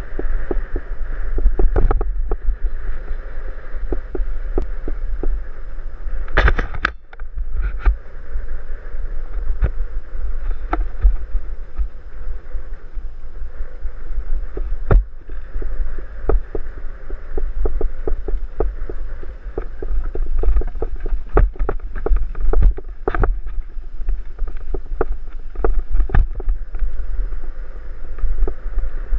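Wind buffeting a helmet-mounted action camera's microphone on a mountain-bike ride down a dirt trail, a constant rumble with a steady hiss over it. Frequent irregular clicks, knocks and rattles from the bike and tyres jolting over the rough ground.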